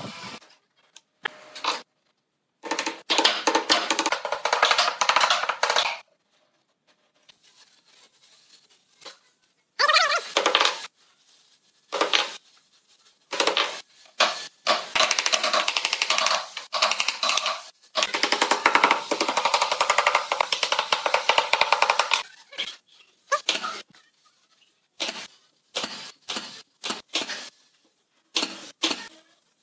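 Thin wooden strip rubbing and scraping against the rim of a round wooden tabletop as it is worked into place, in several separate stretches. Near the end come a few short, sharp shots from a pneumatic nail gun.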